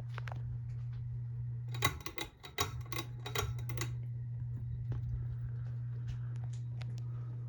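Hampton Bay Carousel ceiling fan's motor humming steadily, with a quick run of sharp clicks and rattles between about two and four seconds in.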